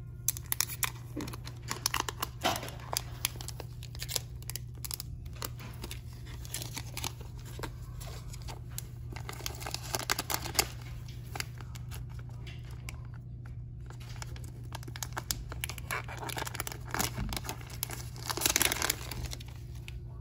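The sealing strip of a smartphone box being torn and peeled off, crinkling and tearing in several spells.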